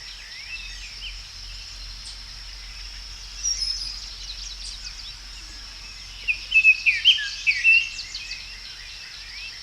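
Outdoor birds chirping and singing over a steady high insect drone. One short burst of song comes about three and a half seconds in, and a busier run of chirps from about six to eight seconds.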